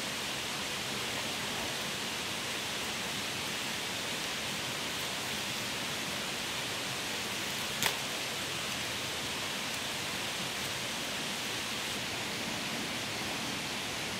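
A steady, even rushing hiss, with one sharp click about eight seconds in.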